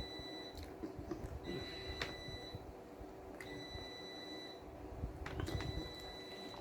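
Close-up chewing and crunching of food, with soft irregular knocks. Behind it a high steady beep-like tone sounds for about a second roughly every two seconds.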